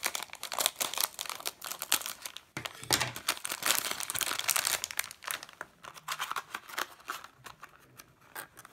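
Foil blind-bag wrapper crinkling as it is handled and cut open with scissors, then a clear plastic inner bag crinkling. The crackles are dense and irregular.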